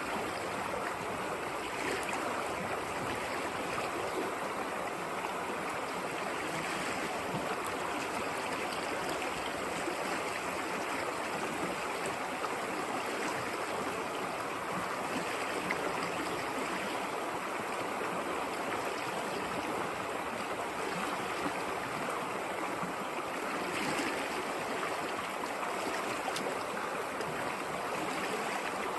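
River water flowing and babbling over stones, a steady rushing with small splashes.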